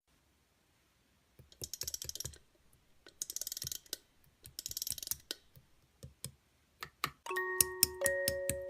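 Three short bursts of rapid crackly clicking, like handling or typing, about a second and a half apart. Just after seven seconds in, music begins with chiming mallet-like notes.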